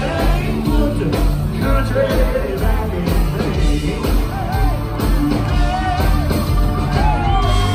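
Live band music with singing over a steady drum beat.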